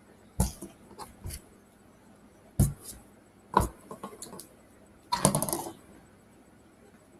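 Play-Doh tools and tubs being handled on a tabletop: four separate knocks, then a short rattling clatter about five seconds in.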